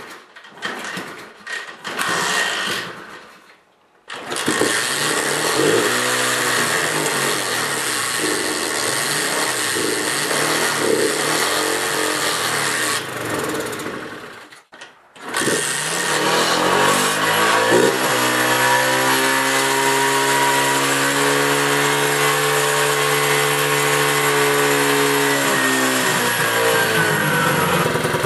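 Small Honda-clone minibike engine being started: a few short sputtering tries, then it catches about four seconds in and keeps running, with a brief gap around the middle, then runs steadily. The engine is starting and staying running with its carburetor freshly cleaned, where before it would only start on the choke and then die.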